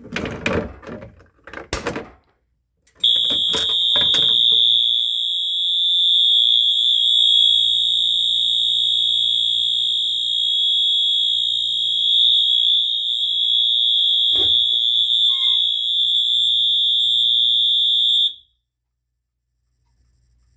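Wheelock MT-12-LS horn strobe sounding a loud, steady, high-pitched continuous horn tone for about fifteen seconds, then cutting off suddenly when the alarm is silenced. Before the horn starts there are a few sharp clicks and knocks.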